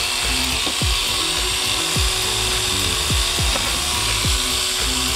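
An angle grinder spins an abrasive wheel against a rusty brake caliper bracket, stripping off rust with a steady, high, hissing grind. Background music with a regular beat plays underneath.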